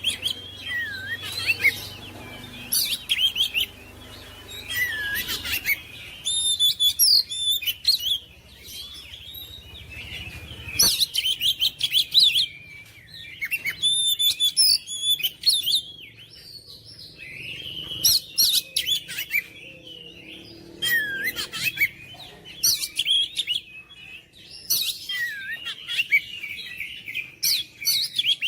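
Oriental magpie-robin (kacer) singing: bursts of varied whistled phrases and rapid chirps, each a second or two long, broken by short pauses.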